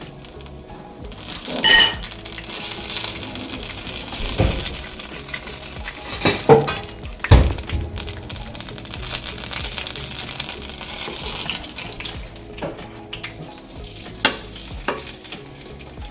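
Flour dumplings sizzling as they fry in hot oil, with a ringing clink near the start and several sharp knocks of a utensil against the pan.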